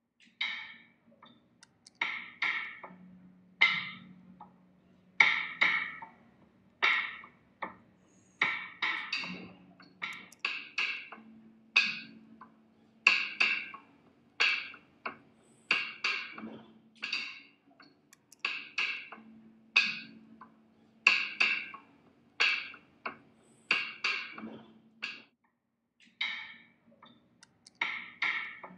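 Background music of sparse struck percussion notes, each sharp and quickly fading, about one a second over a low steady drone, with a brief pause near the end.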